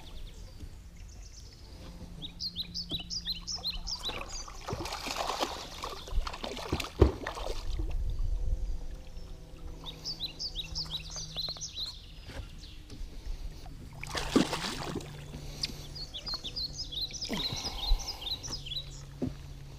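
Hooked largemouth bass splashing at the water's surface in several bursts as it is reeled to the boat and lifted out, with runs of quick high bird notes and a low steady hum beneath.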